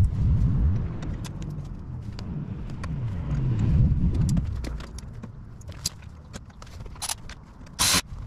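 Small metal clicks and taps of a hand tool on a steel luggage-rack mount, over a low wavering rumble for the first four seconds or so. Near the end comes a short, loud burst of noise.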